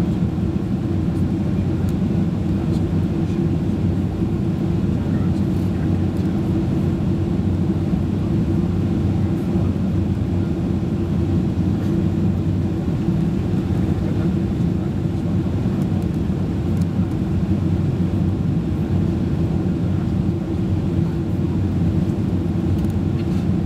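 Steady engine and airflow drone of a Boeing 767-336 heard inside the passenger cabin, with a constant low hum and no change in engine power.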